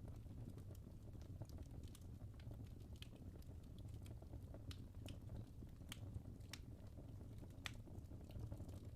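Wood fire burning in a fireplace: a low steady rumble of flames with soft, irregular crackles and pops from the burning logs, a few sharper snaps among them.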